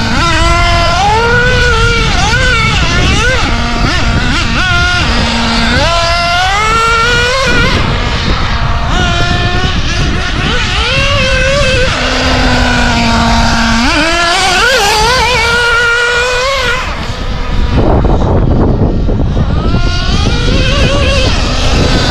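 Novarossi nitro engine of a Kyosho Inferno MP10 buggy revving hard as it is driven, its pitch climbing with each burst of throttle and dropping back, with a short steady lower tone a little past the middle. Wind rumbles on the microphone underneath.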